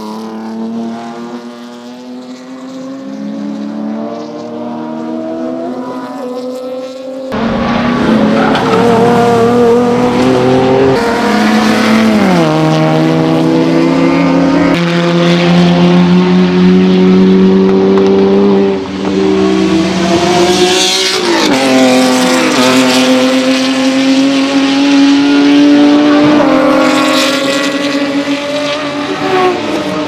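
GT300 race car engines, Hyundai Genesis Coupes with a naturally aspirated 3.8 V6 and Veloster Ns with a 2.0 turbo four, running hard through corners. The engine note holds at high revs and drops in steps as they downshift. About seven seconds in it jumps abruptly to a louder, closer car.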